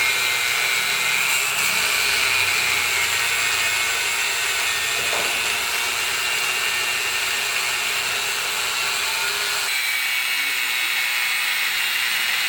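A power tool running steadily: a loud, continuous high whine over a hissing rush, starting abruptly. Its lower part drops away about ten seconds in.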